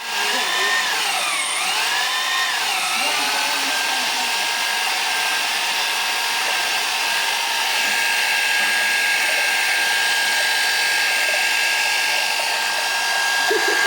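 Electric drill used as a makeshift grinder, running continuously with a high motor whine as it blends mango for juice. Its pitch dips and recovers twice in the first three seconds as the motor bogs under the load, then holds steady.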